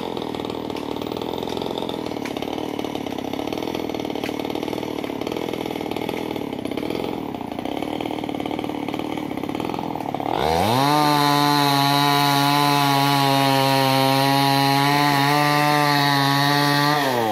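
Two-stroke chainsaw cutting wood, running with a dense buzz for about ten seconds. It then revs up sharply to a steady high-pitched whine at full throttle for about six seconds, and the revs drop near the end.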